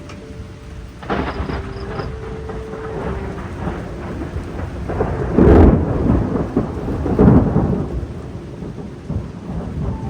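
Thunder rumbling over steady rain, with rolls building about a second in and the loudest peals a little past halfway. Soft background music fades out in the first few seconds.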